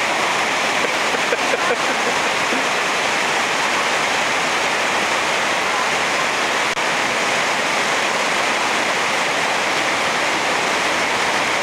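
Fast creek water rushing steadily down a natural rock waterslide, a loud continuous rush of whitewater.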